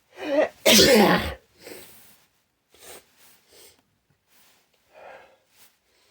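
A person sneezing once: a short rising intake, then a loud sneeze about a second in, followed by a few quiet breaths. The sneeze is set off by tickling the nostrils with grass blades.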